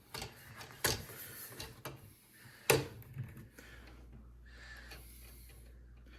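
A few sharp knocks and clicks of hard parts being handled, the loudest nearly three seconds in, then a faint steady low hum.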